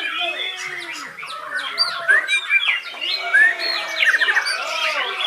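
Many white-rumped shamas singing at once, a dense overlap of whistles, quick rising and falling notes, fast trills and harsh chattering calls.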